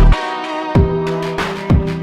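Electronic dance music with no vocals: a heavy bass note cuts off just after the start, then kick-drum hits come under steady synth chords.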